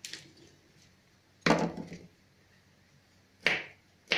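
Kitchen knives knocking against a plastic cutting board and wooden tabletop while garlic cloves are cut: three sharp knocks, the first and loudest about a second and a half in, then two more near the end.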